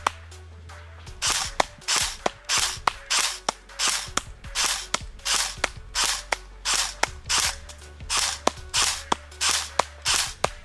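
Bolt AKM airsoft electric rifle with the BRSS recoil system firing a steady string of single shots, about two a second, starting about a second in. Each shot is a short burst ending in a sharp crack.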